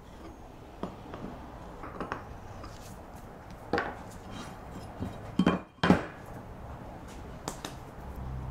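Aluminium plate and small hand tools being picked up and set down on a wooden workbench: a few separate light knocks and clicks, the sharpest a little under 4 s and just under 6 s in.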